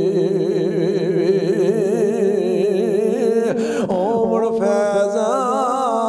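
Man singing a Punjabi Sufi kalam: a long held note with a strong wavering vibrato that breaks off about three and a half seconds in, then a new ornamented phrase. A steady low drone sounds beneath the voice.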